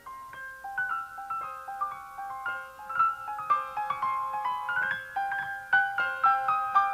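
Piano music: a light melody of short notes, several a second, in the middle and upper range.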